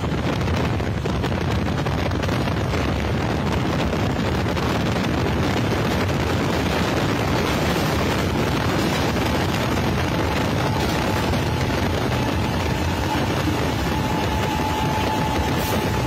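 Steady loud rumble and rush of two trains running at speed on parallel tracks, heard from aboard one of them, with wind buffeting the microphone. A faint steady tone comes in about ten seconds in.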